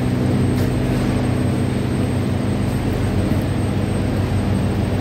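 Steady low machinery hum in a hydropower station's machine hall, several constant low tones over an even rushing noise, with no change in pitch or level.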